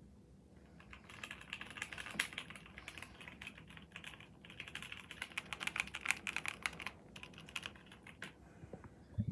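Typing on a custom mechanical keyboard with a 'creamy' sound: a fast, steady flurry of key clicks that thins out near the end, followed by a single low thump.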